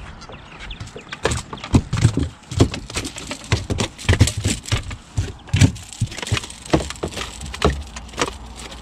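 A largemouth bass flopping in a landing net on a boat deck: a run of irregular thumps and knocks, several a second at times, starting about a second in and dying away near the end.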